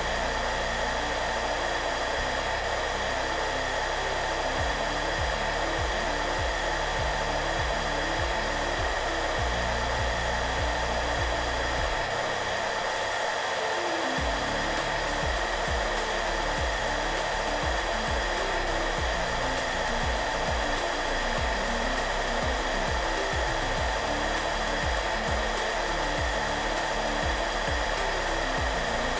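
Hair dryer running steadily: an even blowing rush with a constant whine. Soft background music plays underneath, low notes that change every fraction of a second and stop briefly about halfway through.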